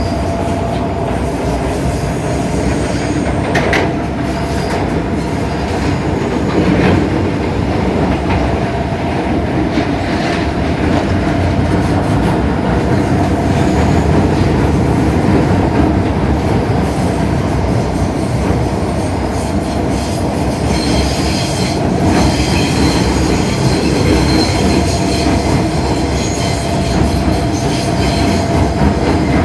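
MTR Kwun Tong line Modernised Train running, heard from inside the car: a steady rumble of wheels on rail with a constant hum. A high-pitched wheel squeal comes in about twenty seconds in and lasts several seconds.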